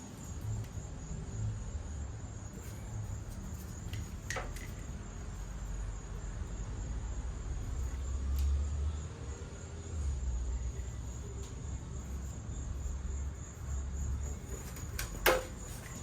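Insects trilling, a steady high-pitched tone, over an uneven low rumble. There are two sharp knocks, about four seconds in and again near the end, the second the loudest.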